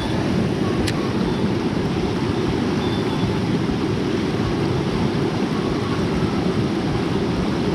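Steady low rumbling noise of wind buffeting the microphone outdoors, with a faint click about a second in.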